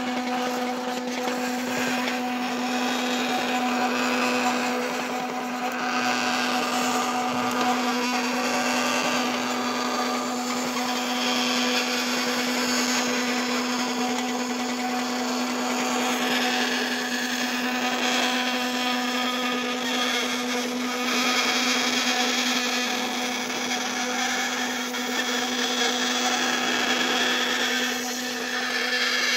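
Small electric motor running steadily with a constant hum and whir, driving a homemade PET-bottle filament maker.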